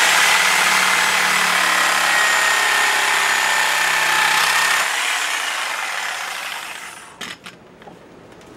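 Reciprocating saw (Sawzall) running and cutting excess wood off rough knife handle scales clamped in a vise, a steady whine over the blade's rasp. About five seconds in it is let off and winds down, stopping about seven seconds in, followed by a few light knocks.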